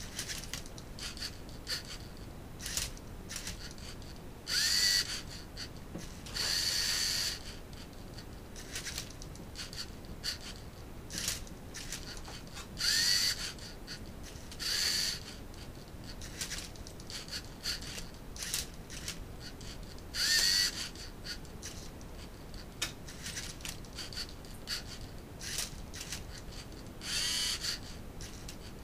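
LEGO Mindstorms NXT robot's motors whirring in about six short bursts, each under a second, some with a gliding pitch, as the machine turns and flips a Rubik's cube. Between the bursts come many light clicks and clacks of the plastic LEGO parts and cube.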